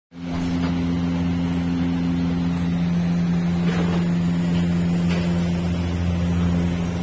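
A steady low machine hum with a constant pitch, and a few faint ticks over it.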